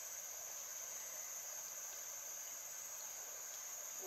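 Steady, high-pitched drone of an insect chorus in tropical forest.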